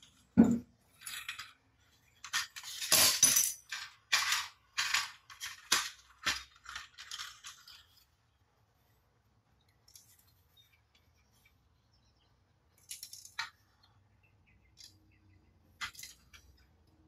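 Hollow plastic toy fighter jet being handled and turned over: a run of clicks, knocks and rattles of plastic parts, thick for the first eight seconds or so, then a few scattered clicks.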